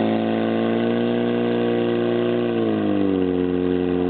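Portable fire pump's engine running hard as it pushes water out through the hose lines, its revs holding steady and then easing down a little about three seconds in.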